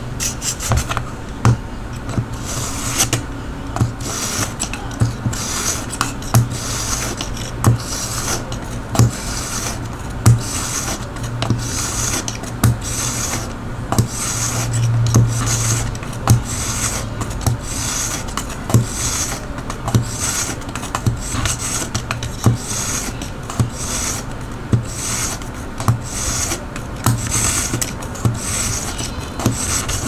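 Knife blade drawn over and over through a Gerber diamond and ceramic pocket knife sharpener: a short rasping scrape with each stroke, about one a second, each with a small click.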